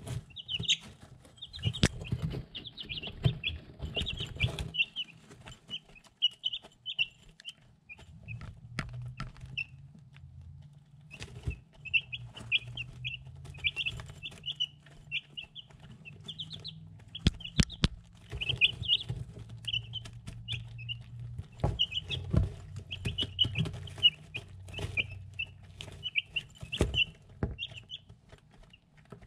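Three-week-old chicks peeping in quick, short, high chirps while pecking feed from a ceramic bowl, their beaks tapping the dish in sharp clicks. The chirping pauses for several seconds about five seconds in. A low hum runs through much of the middle.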